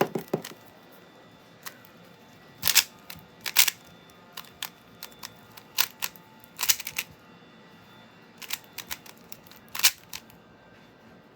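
A 3x3 speed cube being turned by hand: quick plastic clicks and clacks of its layers, in irregular flurries with short pauses between them.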